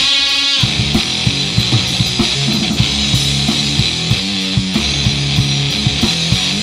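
Instrumental rock played live on an electric guitar and a drum kit, with a steady wash of cymbals over the guitar riff.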